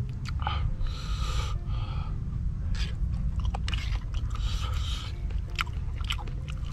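A person eating close to the microphone: irregular bites and chewing, over a steady low rumble.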